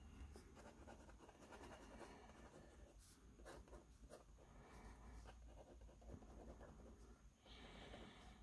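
Faint scratching of an ink pen on sketchbook paper, drawn in many short, irregular strokes to shade in a dog's dark ear.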